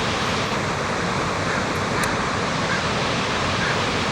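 Waterfall roar from Snoqualmie Falls, a steady rushing of water falling about 300 feet into a pool.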